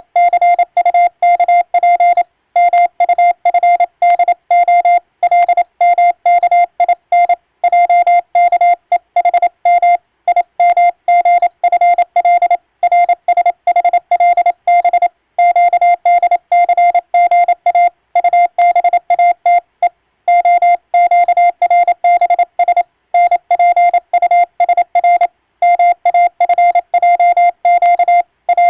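Morse code sidetone from an electronic keyer: one steady beep pitch, keyed rapidly into dots and dashes with short pauses between words. It is sending an English-text radiotelegram.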